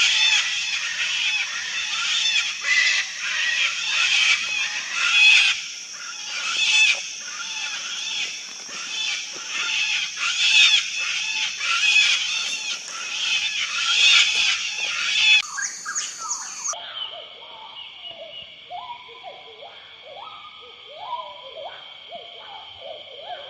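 A flock of sulphur-crested cockatoos shrieking, many rough overlapping calls with loud peaks every second or so. About sixteen seconds in the shrieking stops abruptly, leaving a quieter steady high drone and softer, lower calls.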